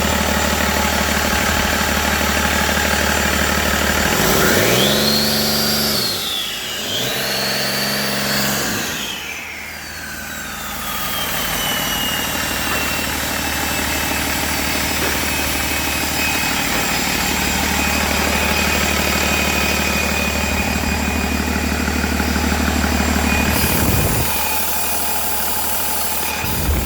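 2011 Cummins ISB 6.7 inline-six turbodiesel idling, then revved up twice between about four and nine seconds in before dropping back to idle. As it settles, a high whine falls away and then holds steady over the idle. There is a brief dip in the engine sound near the end.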